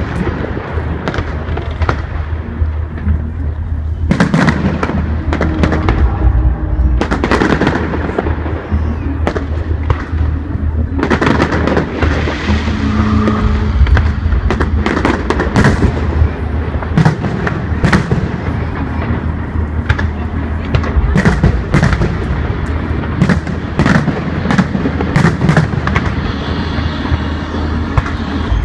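Aerial fireworks display: shells bursting overhead in irregular loud bangs and crackles, coming thicker and faster in the second half.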